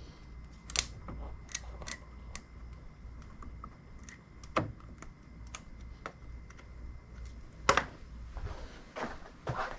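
Irregular small clicks and taps from hands handling switch and trim parts, with sharper clicks about a second in, near the middle and near the end.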